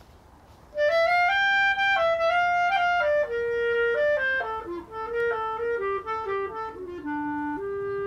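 Background music: a solo melody on a single instrument, entering about a second in and stepping mostly downward note by note, with a long held note near the end.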